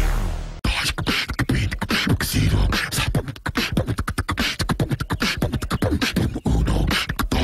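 A person beatboxing: a fast, unbroken run of mouth-made kick drums, snares and clicks, starting about half a second in.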